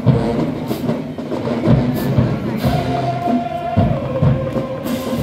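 Marching band playing: drum strikes every half second or so under brass, with a long held note in the middle that steps down partway through.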